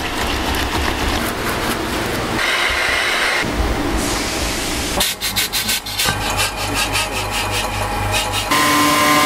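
A quick run of hand-work sounds in a shoe repair workshop. First a brush scrubs adhesive onto a rubber boot sole, then the sole is rubbed and pressed onto the boot, with a rapid patter of sharp taps partway through. Near the end a workshop machine starts up with a steady hum.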